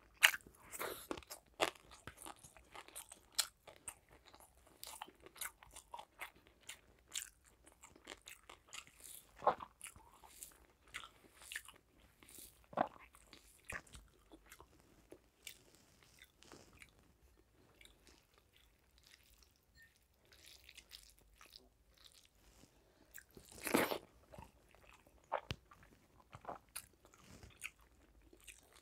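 Close-up mouth sounds of someone eating rice and curry by hand: irregular chewing, biting and crunching in short clicks and crackles. The loudest is a cluster of crunches about five seconds before the end.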